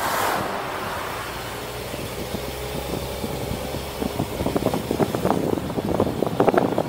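Car driving along with steady engine and tyre noise, and an oncoming car whooshing past close by at the start. From about four and a half seconds in, rapid irregular knocks and thumps.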